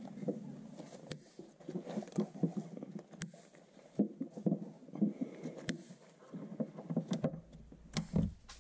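Cutters snipping the excess tails off plastic cable ties: about five sharp clicks a second or two apart, over the rustle of gloved hands handling the wiring and ties.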